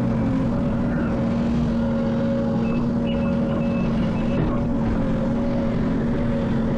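Heavy construction-machine diesel engine running steadily at a constant pitch. About three seconds in, a few faint short high-pitched beeps come through over it.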